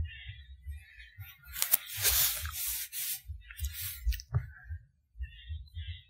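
Low, irregular thuds of footsteps and camera handling, with leaves and stems rustling as someone pushes through woodland undergrowth; the loudest rustle comes between about one and a half and three seconds in.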